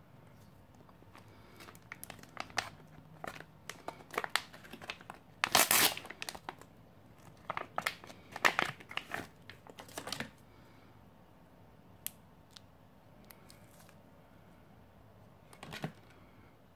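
Laminated ration pouch of a shelf-stable cinnamon bun crinkling and being torn open by hand, in a run of bursts over the first ten seconds, loudest around six and eight and a half seconds in. A few faint ticks and a brief rustle follow as the bun is taken out.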